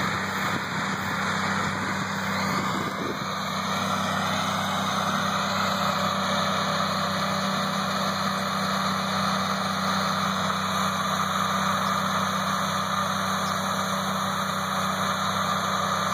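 Farm tractor engine running steadily under load, towing a trailed hay mower as it cuts grass, with the steady drone of the running cutter underneath.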